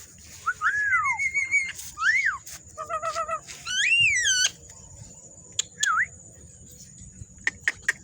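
Javan myna calling: a string of varied loud whistles, some rising and falling in pitch, with a short harsh chattering phrase in the middle, ending about six seconds in. A steady high hiss runs underneath, and a few sharp clicks come near the end.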